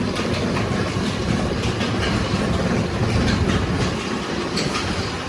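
Mustard-oil kohlu expeller running: a steady machine noise with a low hum and repeated faint clicks.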